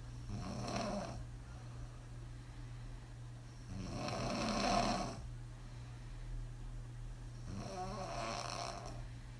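A woman snoring on her back after several drinks: three open-mouthed snores about four seconds apart, the middle one the loudest.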